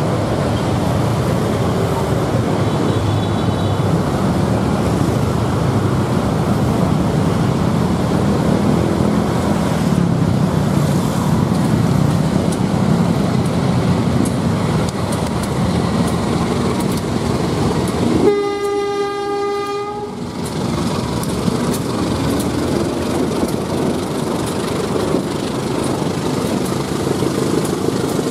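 Two coupled CC203 diesel-electric locomotives hauling a train past, their diesel engines running under a steady rumble of wheels on rail. About two-thirds of the way through comes one train-horn blast of about two seconds on a single steady note.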